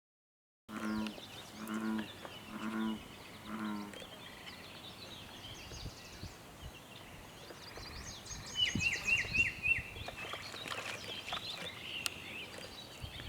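Four low, droning animal calls in a row, each about half a second long, then birds chirping, including a quick run of four rising chirps in the middle.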